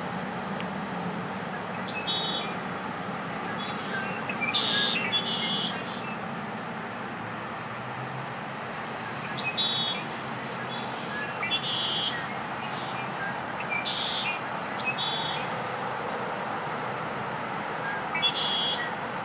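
Male red-winged blackbird singing, about five short songs spaced a few seconds apart, over a steady background rush.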